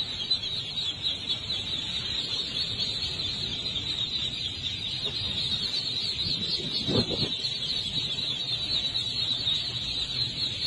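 A large crowd of ducklings peeping all at once, a dense, steady chorus of high overlapping peeps, with one short lower sound about seven seconds in.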